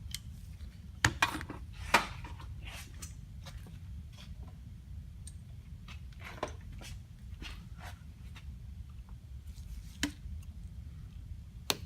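Scattered light clicks and scrapes of small hand tools working on a carburetor body, over a steady low hum. There are a few sharper clicks about a second and two seconds in, and a sharp click near the end as a part being pried at pops off.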